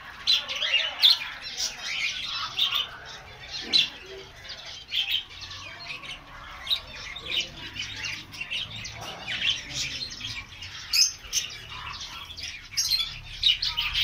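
A flock of caged budgerigars chattering: many short, high chirps and squawks in quick, irregular succession.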